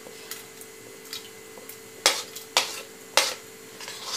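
A spoon clinking and scraping against a plate as chopped vegetables are pushed off it into a pressure cooker of water, with several sharp clinks, the loudest three coming in about the second half.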